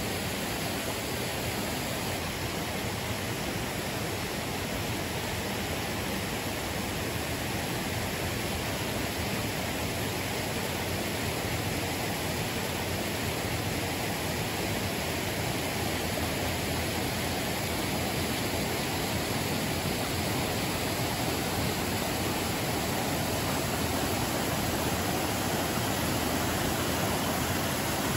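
Stream water rushing over rocks and a small waterfall, a steady rushing that grows a little louder near the end.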